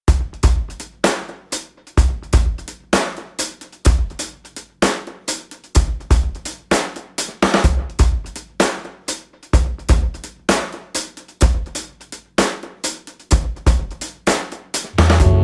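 Drum-kit beat in background music: kick drum, snare, hi-hat and cymbals playing a steady groove at about two hits a second.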